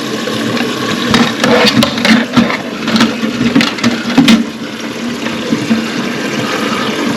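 Water running steadily in a toilet cistern, with several sharp plastic clicks and knocks as filling-valve parts are pushed and fitted into place.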